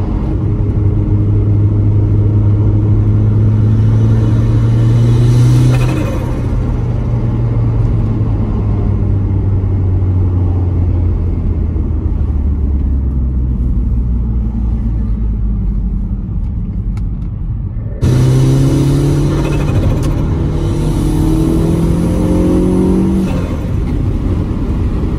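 Gen 5 3S-GTE turbocharged four-cylinder engine in an MR2 Turbo, heard from inside the cabin, pulling up through the revs for several seconds. The pitch then drops and slowly sinks as the car coasts. Near two-thirds in the sound changes abruptly and the engine pulls up through the revs again, then drops off near the end.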